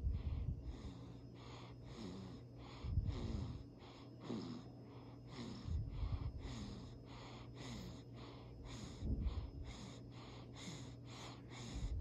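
A sleeping baby breathing quickly and noisily, snoring softly on each breath, with louder, rougher breaths every couple of seconds.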